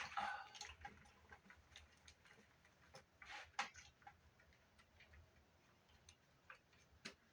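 Sparse, faint clicks and light taps from handling the opened Fostex MR-8 and its small parts by hand, with a slightly louder cluster of clicks about three and a half seconds in and a sharp click near the end.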